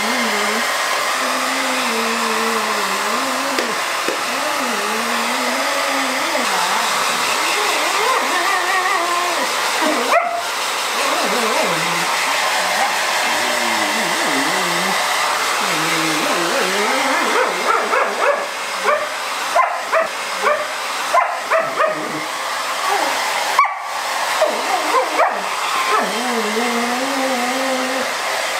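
A border collie grumbling and whining in protest at being blow-dried, its voice wavering up and down without pause, over the steady rush of a hair dryer. In the second half the grumbles break into a string of short, rapid yaps.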